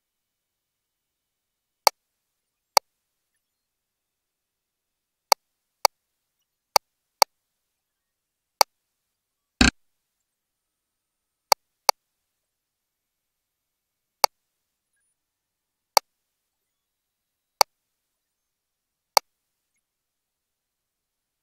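Sharp, isolated clicks at irregular intervals, about fourteen of them, with one longer, louder click near the middle, over dead silence.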